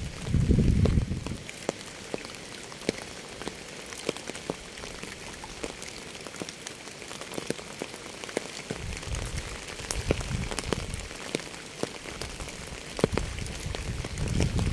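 Steady rain hissing, with many individual raindrops ticking sharply on a surface. A deep low rumble swells up three times: at the start, partway through, and again near the end.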